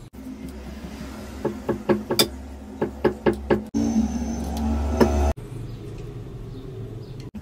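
A quick run of about ten sharp clicks and taps as a metal prosthetic hook holding a silicone pastry brush works against a wooden cutting board. This is followed by a steady low rumble for about a second and a half that cuts off suddenly.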